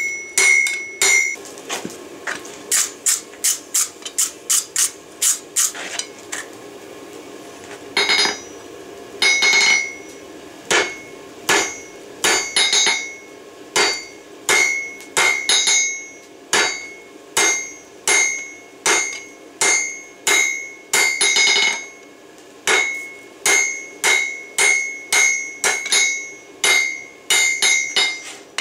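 Hand hammer striking a red-hot steel bar, forge-welded from railroad spikes, on a Peddinghaus anvil, which rings after each blow. A fast run of blows, a pause of about two seconds, then steady blows about two a second.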